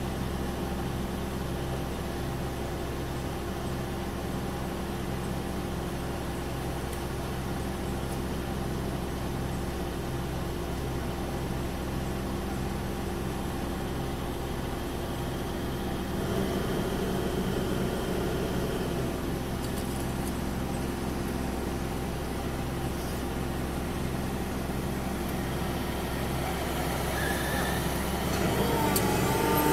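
Hydraulic demolition excavator's diesel engine running steadily, a continuous low drone with a faint regular pulse, a little louder near the end.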